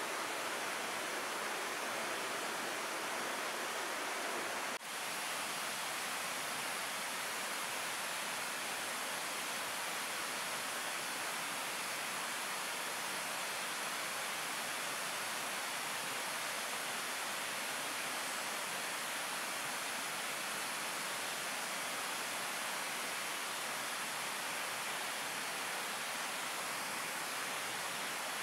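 Steady, even rushing noise with no distinct events, briefly dipping about five seconds in.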